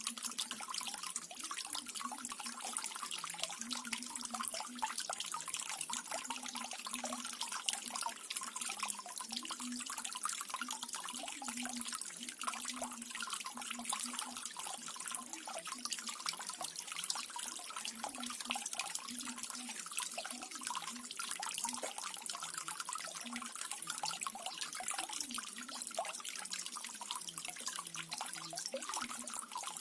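Water from a small waterfall water feature trickling and splashing steadily, with many small drips and a low gurgle underneath.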